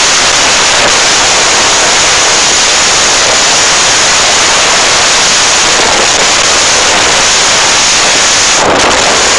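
Loud, steady rushing noise of strong wind and a rough sea breaking against a ferry at sea.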